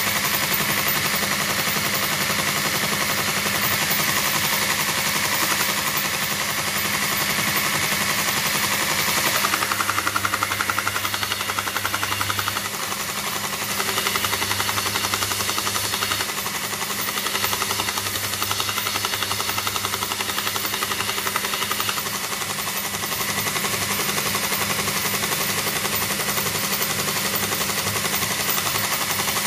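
Home-made belt grinder, driven by an old Soviet bench-grinder motor, running while a wooden stick is sanded on its fine-grit belt. A steady motor hum sits under a continuous rasping of wood on sandpaper, with a fast, even rattle.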